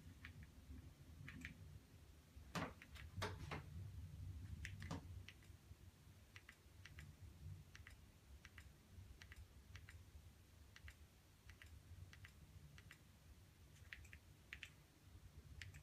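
Light, irregularly spaced clicks from navigating the Amazon Fire TV Stick's menus with its remote, with a few louder clicks about three to five seconds in.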